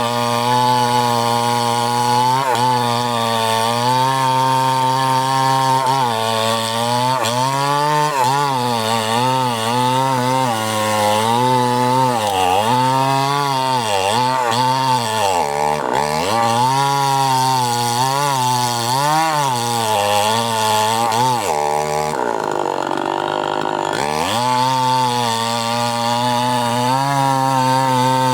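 Two-stroke chainsaw running hard through wood, its engine pitch wavering and dipping again and again as the chain bites under load. About three-quarters of the way in it drops low for a couple of seconds, then climbs back up to speed.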